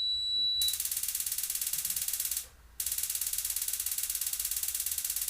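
Gas stove's electric spark igniter clicking rapidly and evenly as a burner is lit, in two long runs with a short break about two and a half seconds in, after a brief high tone at the start.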